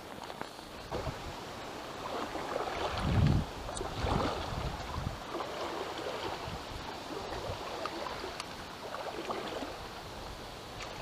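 Wind buffeting the microphone over the steady rush of flowing river water, with the strongest gusts about three to five seconds in.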